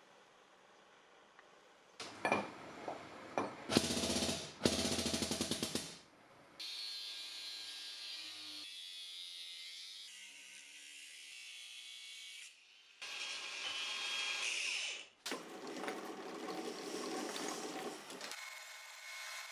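A run of workshop machining sounds, each cut off sharply. First come a few seconds of loud knocks and clatter. Then a small abrasive cut-off wheel grinds steadily into a cast metal housing for about six seconds. Near the end a metal lathe turns a part in its chuck.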